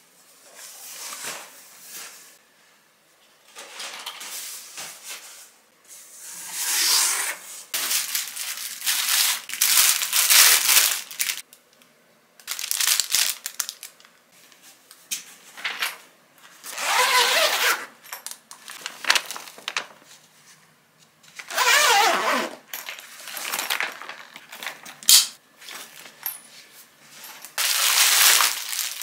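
Cardboard delivery box being opened and plastic grocery packaging crinkling and rustling in irregular bursts as the groceries are handled and lifted out, with a few short sharp taps.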